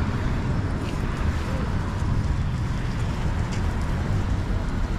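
Steady low rumble of city street traffic, with wind buffeting the microphone.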